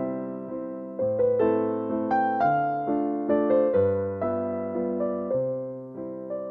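Background music: a gentle, slow piano melody over sustained bass notes.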